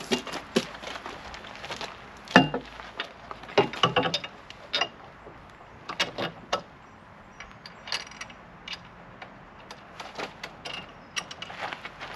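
Irregular clinks and knocks of metal hand tools and bolts being worked by hand, the loudest knock about two and a half seconds in.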